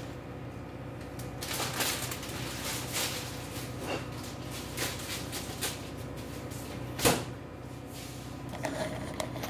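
Kitchen handling noises: scattered knocks, clicks and rustles, with one sharp knock about seven seconds in, over a steady low hum.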